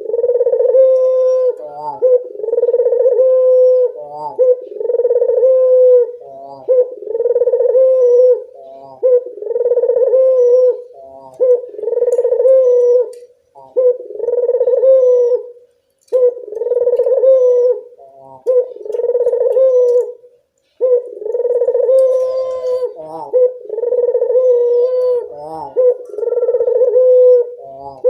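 Puter dove (ringneck dove) cooing over and over: a low, rolling coo about every second and a half, with a few short breaks between runs of calls.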